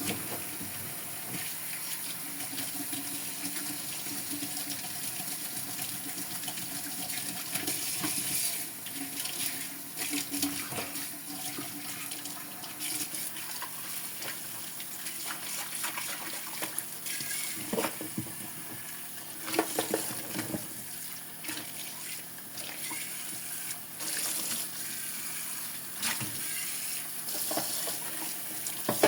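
Tap water running into a sink during dishwashing, with scattered clinks and clatters of dishes being handled, a few louder around the middle of the stretch.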